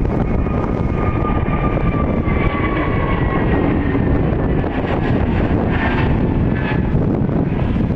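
Jet engines of an Airbus A320neo-family airliner at takeoff power as it climbs out. A steady, loud roar carries a thin whine that slowly falls in pitch as the aircraft passes.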